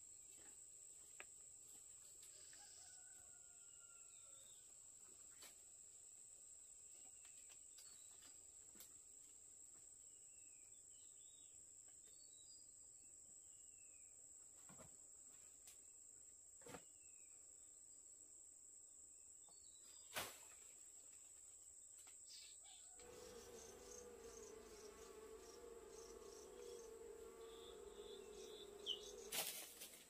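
Faint forest ambience: a steady high-pitched insect drone with short bird chirps and a few sharp ticks. About three-quarters of the way in, the drone fades and a steady lower buzzing hum takes over.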